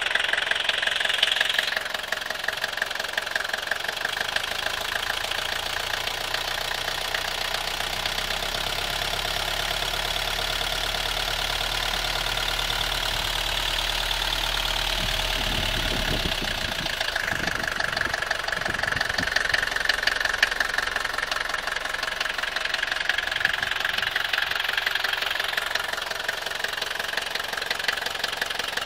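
Mercedes-Benz OM615 four-cylinder diesel in a 1982 W123 200D, running with a fast, even clatter that the owner calls a strange engine noise. The sound changes character a couple of times: once about two seconds in, and again about two-thirds of the way through. Before the second change a low hum runs under it for several seconds.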